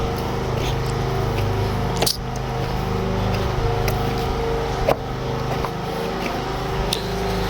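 A steady engine running at an even speed, with a constant drone, and a couple of sharp knocks over it.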